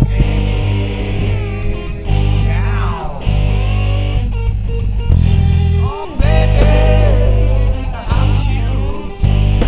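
Blues song: a man singing over electric guitar and a heavy, steady bass line.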